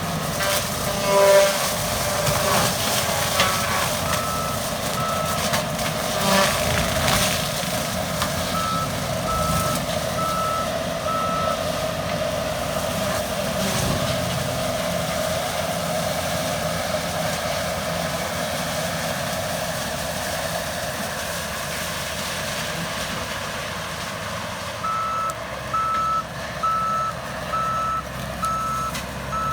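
John Deere 333G skid steer running with its AFE SS ECO forestry disc mulcher spinning, with loud cracking and crunching of wood in the first several seconds. The machine's backup alarm beeps in runs a few seconds in, around ten seconds in and again near the end.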